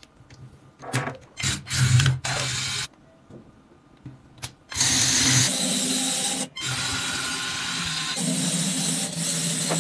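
Plastic LEGO Technic parts handled and clicked together in short bursts, then, from about five seconds in, a LEGO electric motor whirring steadily as it drives the wheeled beam along, with a brief break about a second and a half later.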